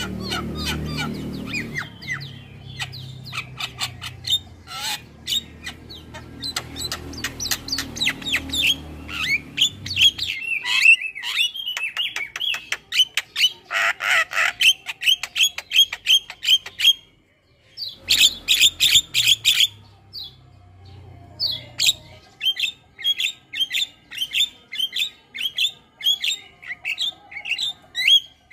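Javan myna (jalak kebo) calling: a fast run of chattering, squawking notes, with a brief pause past the middle. Near the end come short notes repeated at an even pace. A low hum runs underneath during the first part.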